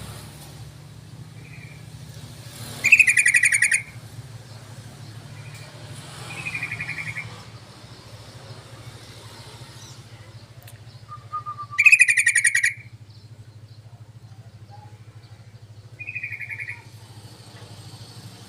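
Yellow-vented bulbul (trucukan) calls: four short, bubbly chattering phrases a few seconds apart, the first and third loudest. A steady low hum runs underneath.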